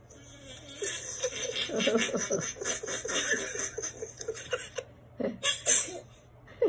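An elderly woman laughing in a long run of quick, breathy chuckles, then a couple of short separate laughs near the end.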